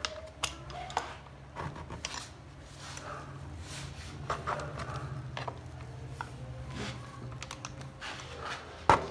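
A knife blade sawing into the hard plastic rear mudguard of a Splendor motorcycle: irregular clicks and scrapes, with one sharp snap near the end. A steady low hum runs underneath for most of it.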